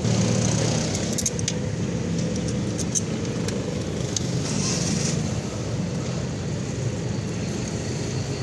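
Steady low hum of running vehicle engines, with light metallic clicks and taps from the throttle body and its fittings being handled, and a short hiss about halfway through.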